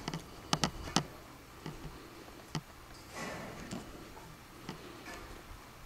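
A few sharp clicks, two close together about half a second in and another near one second, then scattered fainter ticks and a brief rustle just after three seconds, over low background noise.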